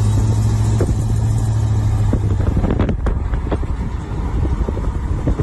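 Loud V8 exhaust of a Chevrolet Caprice convertible donk driving by: a steady low drone for about two seconds, then a rougher, broken rumble with scattered crackles.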